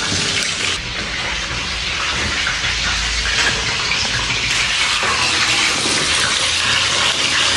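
Marinated meat frying in hot oil in a pan: a steady sizzle.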